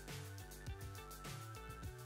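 Background music with a steady beat: drum hits and sustained instrumental notes.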